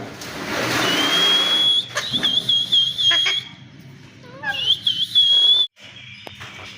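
Alexandrine parakeet calling: a harsh screech with a high steady whistle over it, then high whistled notes that wobble rapidly in pitch, given twice with a few short chirps between.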